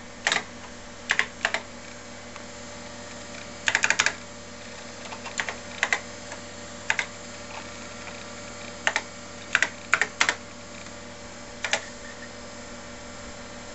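Keystrokes on a TRS-80 computer keyboard, typed slowly and irregularly with a few quick clusters, entering a command to load a program. A steady low hum runs beneath.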